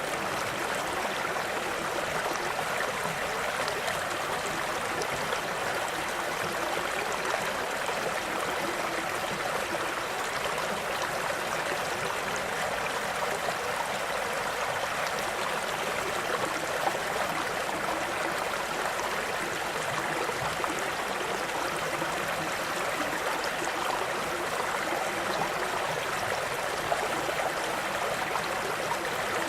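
Stream water flowing and burbling steadily.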